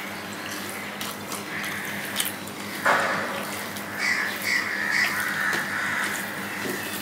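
Fingers mixing rice and curry on a steel plate, with small clicks against the metal. About three seconds in, a steady rushing noise starts and runs on under it.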